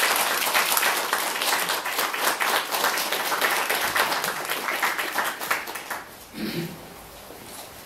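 Small audience applauding, the clapping dying away about six seconds in; a brief voice sounds near the end.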